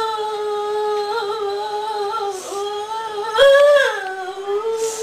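A woman's high voice holding long, wordless notes that waver slowly in pitch. There is a short break about halfway through, then a brief louder, higher stretch.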